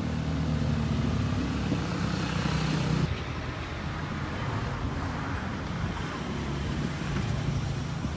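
A car engine running steadily with a low, even hum; the higher hiss above it drops away suddenly about three seconds in.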